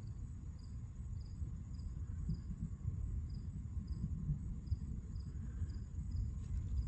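Crickets chirping, short high-pitched chirps repeating about two to three times a second, over a steady low rumble.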